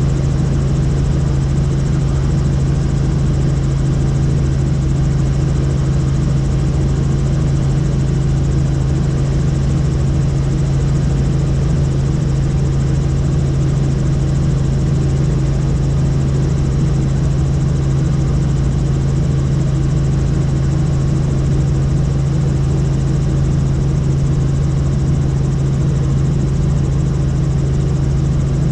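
Helicopter in flight: steady engine and rotor noise with a strong, unchanging low drone.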